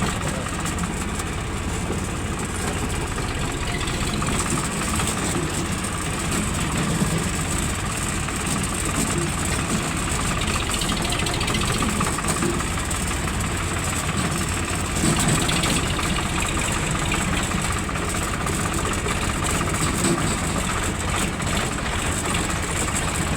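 Diesel engine of an excavator running steadily at idle.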